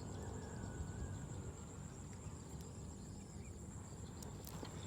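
Insects, likely crickets, droning in a steady high-pitched trill over a low rumbling noise on the microphone.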